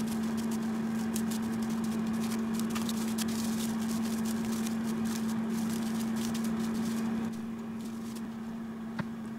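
Air fryer humming steadily at one pitch as it runs, with plastic cling film crinkling as it is wrapped around a cut white radish; the crinkling stops about seven seconds in.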